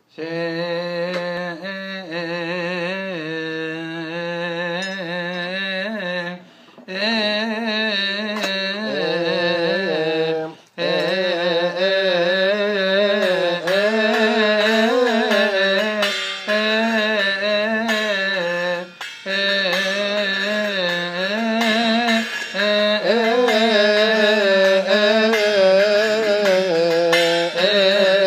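Male voices chanting a Coptic Kiahk praise hymn, slow and melismatic with long held notes that bend up and down. The chant breaks off for breath three times.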